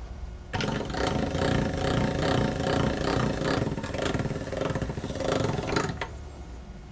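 Hand-cranked stainless steel pasta machine with a spaghetti cutter attachment being turned, its gears and rollers rattling steadily as a sheet of dough is cut into spaghetti. The rattle starts about half a second in and stops about six seconds in.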